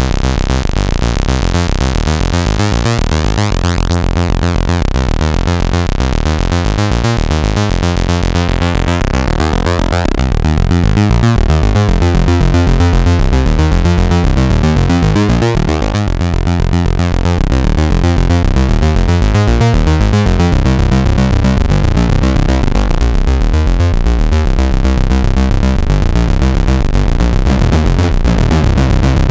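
Behringer Odyssey analog synthesizer playing a fast, repeating sequence of notes, with the tone sweeping brighter and darker; it gets a little louder about ten seconds in.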